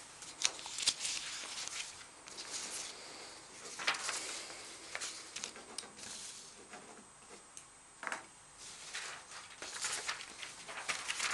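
Loose sheets of paper rustling and being shuffled on a desk, in uneven bursts, with a few sharp knocks as they are set down.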